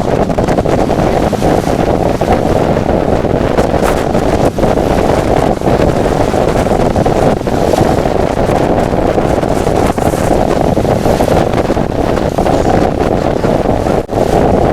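Hurricane Katrina's wind blasting across the camera microphone: a loud, steady, heavy rush of low rumbling noise with no let-up.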